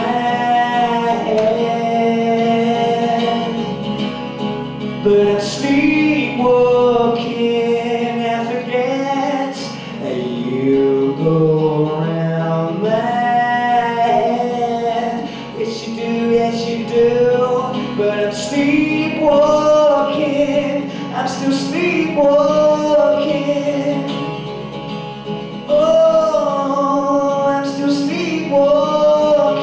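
A man singing a slow song with long held, wavering notes, accompanied by his acoustic guitar.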